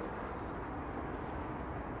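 Steady ambient background noise, an even low hiss and rumble with no distinct clicks or knocks.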